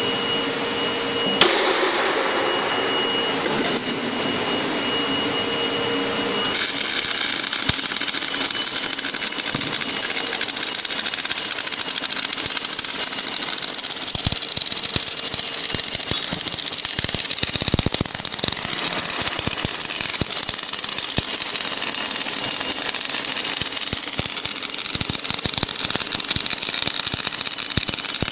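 Automatic saddle-type MIG welding machine on a small pipe-nipple joint. For the first six seconds or so there is a steady electrical whine and hum with one sharp click. Then the welding arc strikes and runs with a continuous crackling hiss, with spatter crackles through it.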